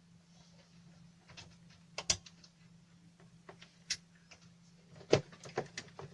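Scattered clicks and knocks of hardware being handled on a workbench, over a faint steady low hum; the sharpest knocks come about two seconds in and about five seconds in.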